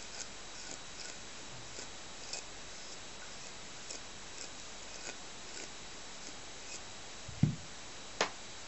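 Faint, light ticks of grooming strokes through a Shih Tzu's long coat, roughly two a second, over a steady hiss. A low thump comes near the end, followed a moment later by a sharp click.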